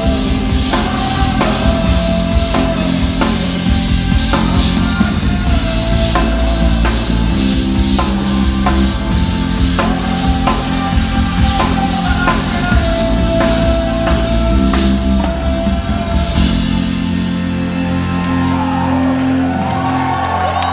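Live rock band playing: drum kit, guitar and a man singing long held notes. About three-quarters of the way through the drums stop and a sustained chord rings on as the song comes to its end.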